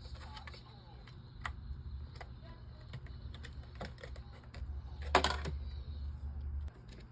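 Scattered sharp clicks and taps, with a louder cluster of clatter about five seconds in, over a steady low hum.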